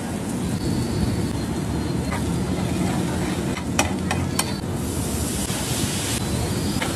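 Gravy sizzling in a huge street-food griddle pan while a metal ladle stirs it, with two sharp metal clicks a little past halfway, over a steady low noise.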